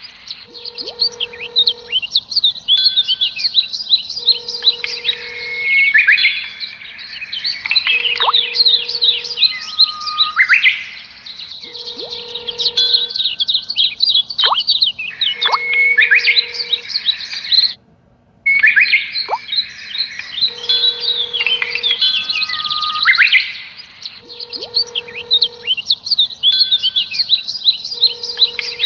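Looped background track of bird chirps and whistles, with a short steady electronic tone repeating about every four seconds; the sound cuts out briefly about two-thirds of the way through.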